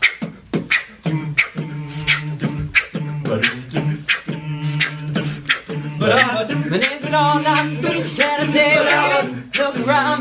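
An a cappella group singing: a beatboxer keeps a steady beat while other voices hold sustained chord notes beneath it. From about six seconds in, a lead voice sings a wavering melody over the chords.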